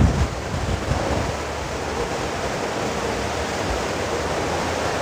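Steady rushing ambient noise in a large hall, with a few low wind buffets on the microphone in the first second or so.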